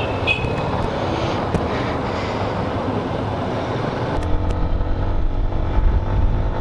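Yamaha Ténéré 250 motorcycle's single-cylinder engine running as it rides off slowly among other motorcycles, heard with wind noise on the bike-mounted microphone. About four seconds in the sound changes to riding at speed, with a heavier, louder wind rumble over the engine.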